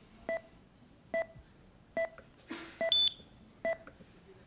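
Simulated patient-monitor pulse beep from the anesthesia simulation software: a short electronic tone repeating evenly, a little more than once a second, like a heartbeat on a pulse oximeter. About three seconds in there is one higher, sharper beep.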